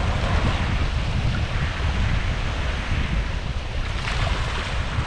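Wind buffeting the microphone over small waves washing in shallow water, with a brief splash of feet and a thrashing stingray a little before four seconds in.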